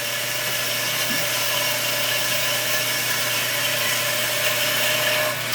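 FMB Phoenix mitering band saw cutting through solid steel bar at full speed under hydraulic feed, its 10/14 variable-tooth blade giving a steady hissing cut with a steady whine over the motor's hum. The whine stops just before the end as the cut nears completion.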